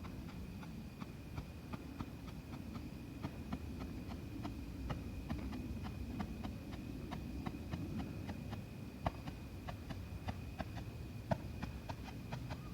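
Dominator Pro Strobe firework strobing: a steady run of small sharp pops, several a second at uneven intervals, with a couple of louder ones near the end, over a faint steady high tone.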